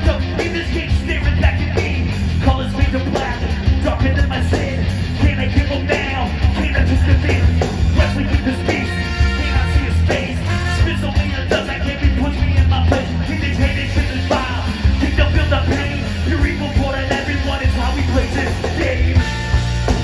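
Live ska band playing loudly over a PA: drums, electric guitars and bass under a trombone and trumpet, with a singer on the microphone. Near the end the horns hold long steady notes.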